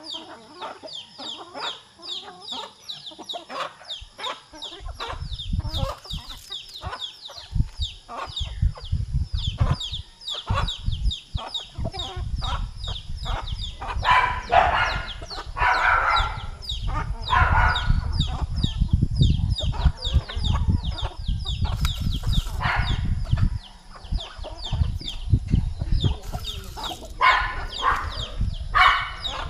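A large flock of chickens calling together: a dense stream of rapid short chirps with louder clucks and calls breaking through now and then. A low rumble runs underneath from about five seconds in.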